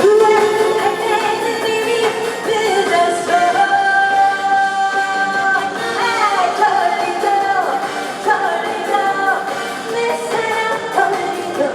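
A woman singing a trot song live over band accompaniment, holding long notes and sliding between pitches.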